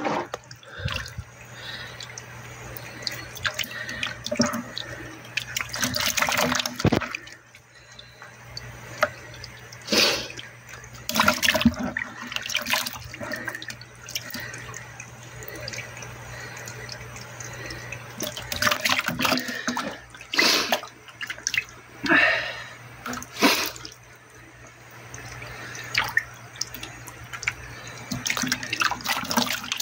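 Water splashing in a tub crowded with live ayu (sweetfish) as a hand reaches in among the wriggling fish and lifts one out; irregular splashes, a few much louder than the rest.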